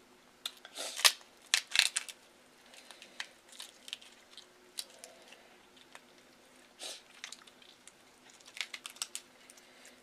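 Boiled lobster shell being cracked and pulled apart by hand, making sharp, irregular cracks and crackles. The loudest burst comes about one to two seconds in, with more cracking near seven and nine seconds.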